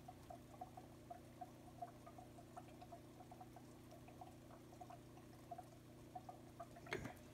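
Faint, irregular small crackling ticks from a soldering iron reheating the solder joint on a carbon brush's braided copper lead, the flux sizzling as the joint is dressed.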